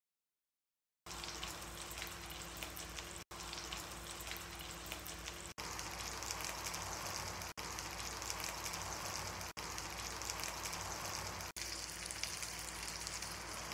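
Whole yellow croaker pan-frying in hot oil: a steady sizzle full of fine crackles, starting about a second in and breaking off for an instant about every two seconds.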